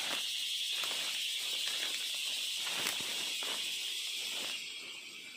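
A steady, high-pitched insect drone of the forest, fading about four and a half seconds in, with footsteps and rustling through leaf litter and undergrowth.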